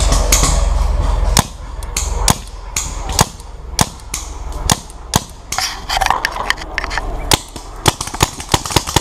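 Paintball markers firing: a string of sharp pops at irregular spacing, some close and loud, others fainter. A steady low rumble fills the first second and a half, then stops.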